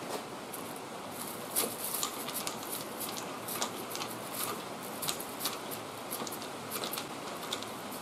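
Hand screwdriver driving a sheet-metal screw into a cab-corner patch panel: a run of small, irregular clicks and scrapes of metal on metal, several a second, over a steady hiss.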